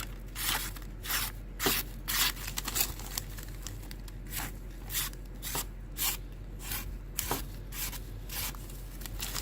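Freshly sharpened pocket knife slicing through a sheet of paper, a series of short, quiet hissing cuts coming about every half second to second. The quietness of the cuts is the sign of a very keen edge.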